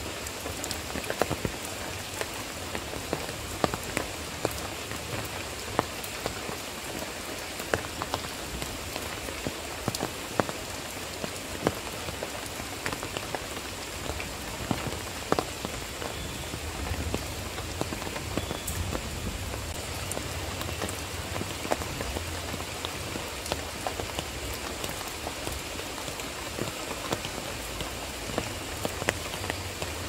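Steady rain falling on garden foliage, with many single drops striking sharply close by.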